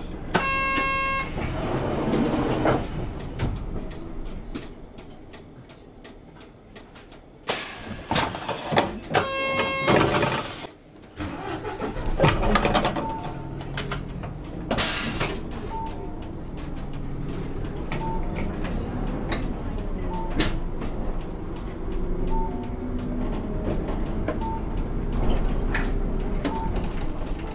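City bus running while it waits at a junction and then moves off, its engine a steady low hum. A pitched chime sounds twice, near the start and about ten seconds in, with short bursts of hiss around it. A soft beep repeats about every second and a half throughout.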